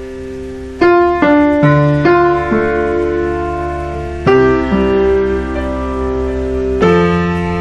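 Background piano music: slow notes and chords struck one after another, each left ringing.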